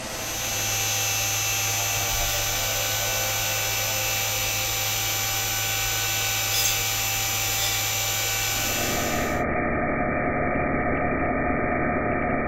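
Machine spindle running a 1 mm solid carbide micro drill (Sandvik CoroDrill 462-XM) into alloy steel under flood coolant: a steady machine hum with thin high whines over a hiss of coolant spray. The spray hiss grows louder about nine seconds in.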